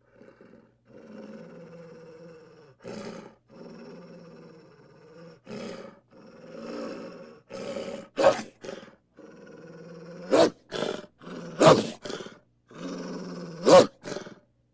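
Wolf growling low and continuously, broken by four loud, short snarling outbursts in the second half.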